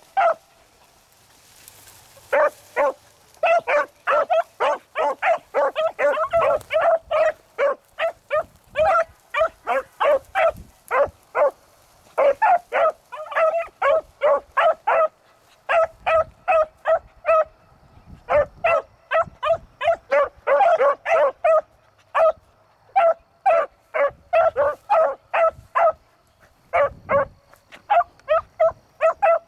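A pack of three beagles baying with rapid, short, overlapping barks as they run a scent track. The cry breaks off briefly a few times and picks straight back up.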